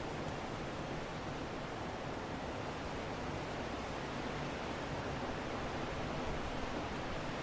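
Steady wind noise: an even, unbroken hiss that holds level without gusts or pauses.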